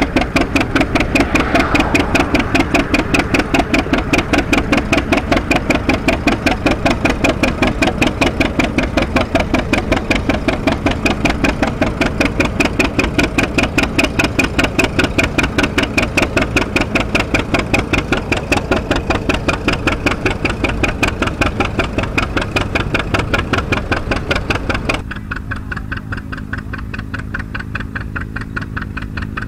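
Antique farm tractor engine running close by with a strong, even, rapid beat as it pulls a plow through the soil. About 25 s in, a cut drops it to a quieter tractor engine with the same kind of pulsing beat.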